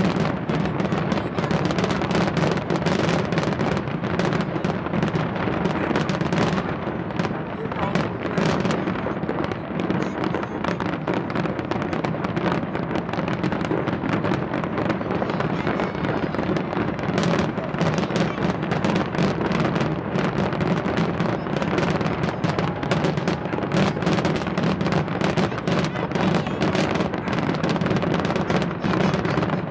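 Fireworks going off in a dense, unbroken barrage of crackles and bangs, many every second.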